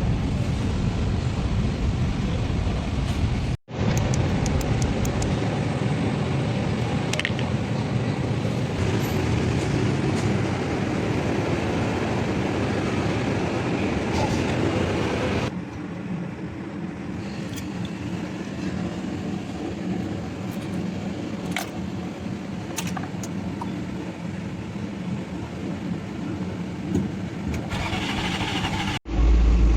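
A car engine running steadily, with a few light metallic clicks. The sound breaks off abruptly twice and is quieter in the second half.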